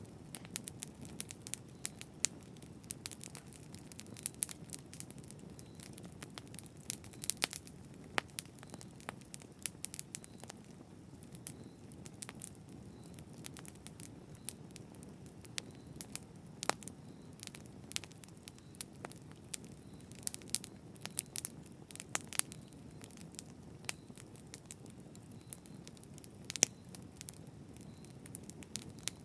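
Campfire burning: a low steady rush of flames with irregular sharp crackles and pops of burning wood, a few louder snaps scattered throughout.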